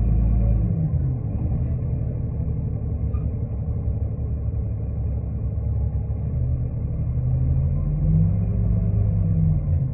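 Interior ride sound of a New Flyer D40LF diesel transit bus: continuous low engine and road rumble. The engine's heavy hum drops away about a second in, as if coming off the throttle, and builds again near the end as it pulls harder.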